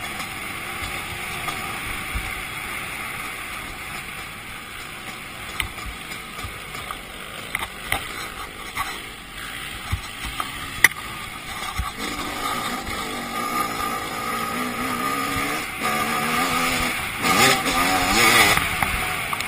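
2008 Suzuki RM250 two-stroke dirt bike being ridden along a trail, its engine under a rush of wind noise, with a few sharp knocks. From about twelve seconds in, the engine note comes through more plainly, rising and falling with the throttle.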